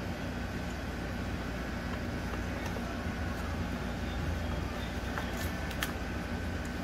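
Steady low background rumble and hum, with a few faint light clicks a little past the middle as the plastic injector wiring harness and its connectors are handled.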